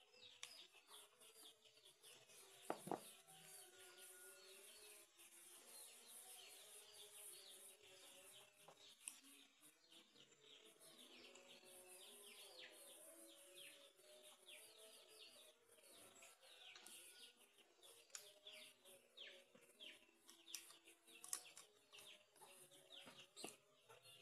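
Faint background bird chirping, many short falling chirps in quick succession, with low clucking of chickens underneath. A few light metallic clicks as the welded pliers are handled.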